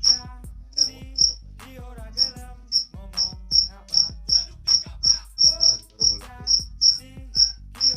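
A cricket chirping: short, high-pitched chirps about twice a second at uneven spacing, over fainter background music.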